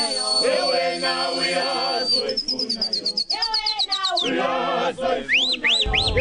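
A choir singing in harmony, with high bird-like whistles layered over it: one long held whistle, then a rapid trill, then several short rising chirps near the end. A low rumble comes in just before the end.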